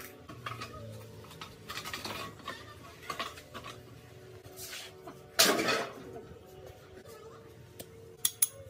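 Metal parts and hand tools clinking and clattering as they are handled, with a louder, noisier sound lasting under a second about five and a half seconds in.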